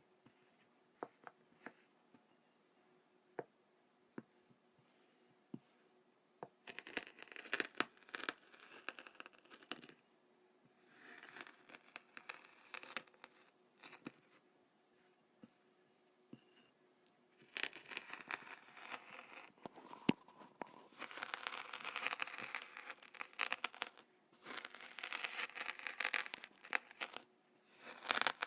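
Kinetic sand being handled close to the microphone. A few light ticks come first, then several stretches of crumbling, scraping noise, the longest in the second half.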